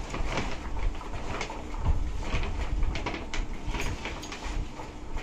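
Brown kraft-paper shopping bag rustling and crinkling as items are pulled out of it by hand, with irregular crackles and soft bumps.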